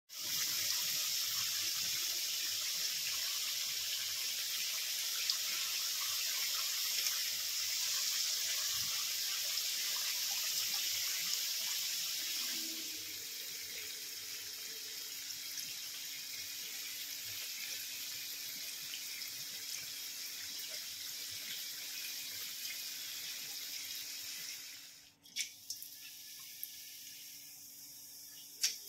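Water running steadily from a tap into a sink; the flow turns quieter about halfway through and is shut off near the end, followed by a few sharp clicks.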